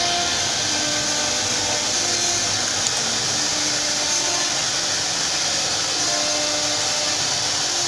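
CNC router spindle cutting wood, a steady hiss, with short tones under it that step up and down in pitch every half second or so.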